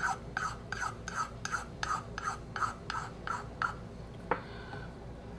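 Flat metal file rasping across a briar pipe's stummel in short, regular strokes, about three a second, shaping the wood before sanding. The strokes stop a little past halfway, followed by a single light click.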